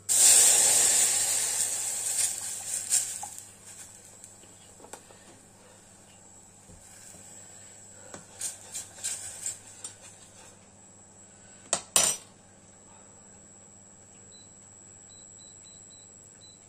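Milk poured into a hot butter-and-flour roux in a stainless steel pot sizzles loudly, fading over about three seconds. A spoon then clinks against the pot a few times as the sauce is stirred, with two sharp knocks about twelve seconds in.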